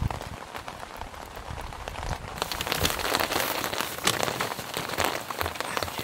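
Steady rain pattering on tent and tarp fabric, many individual drops ticking. About two seconds in it turns louder and sharper.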